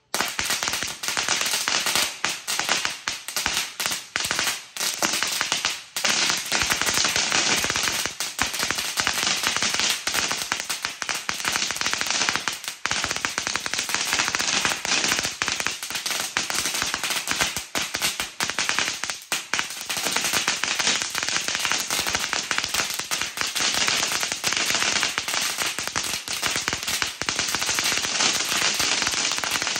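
Standard Fireworks paperless 5000-wala firecracker chain going off in a continuous rapid barrage of bangs, with a few brief lulls.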